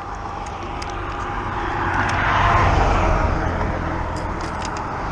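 A car passing by, growing louder to a peak about halfway through and then fading, over a low rumble.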